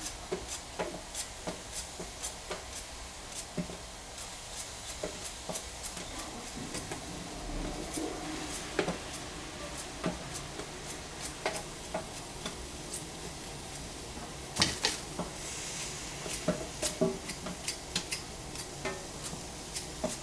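Knife chopping potato on a cutting board: sharp, even strokes about two to three a second, turning into more irregular knocks after about six seconds.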